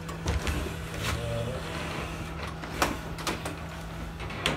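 Forklift running with a steady low hum, and several sharp knocks and clunks around it.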